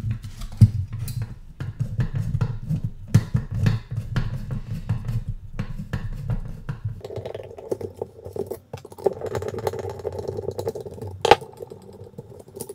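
Screwdriver backing the screws out of a 60 mm fan on an aluminium Socket A CPU heatsink, with clicks and rattles as the plastic fan frame and heatsink are handled. A steadier scraping sets in about seven seconds in, and there is one sharp click near the end.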